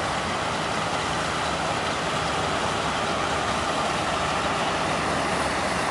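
Large farm machine running steadily while its raised hopper tips out a load of soil: a constant engine and machinery noise with a rushing haze over it and no change in pitch.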